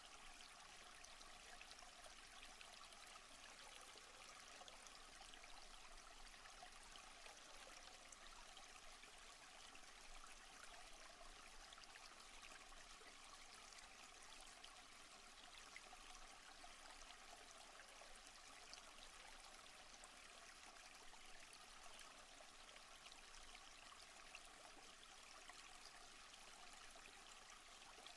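Faint, steady running water of a stream.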